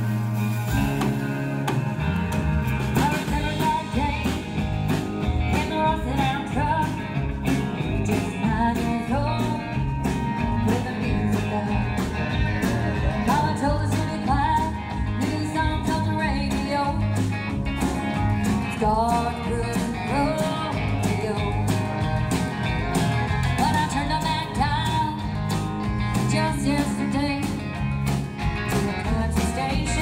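Live country-rock band playing a song, with a lead voice singing over electric and acoustic guitars and a drum kit.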